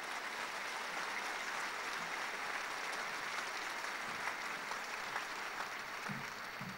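Large crowd applauding, a steady dense clapping that eases off slightly near the end.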